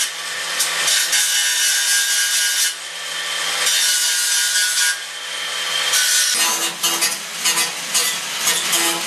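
Angle grinder cutting and grinding sheet steel: a steady, high, hissing whine that eases off briefly twice, then changes tone about two-thirds of the way in as the work moves on.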